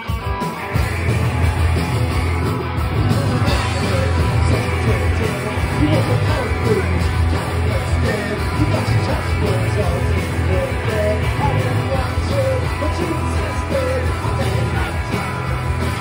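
Punk rock band playing live: loud, driving electric guitars with a shouted vocal.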